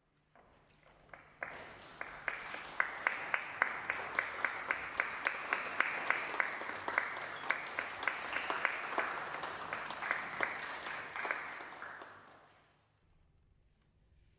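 Audience applauding, building up over the first couple of seconds and dying away near the end.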